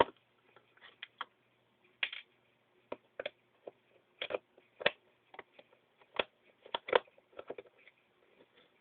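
Irregular small clicks and taps of a screwdriver and hard plastic parts as the grip screws and grips are worked off a Stinger P311 airsoft pistol.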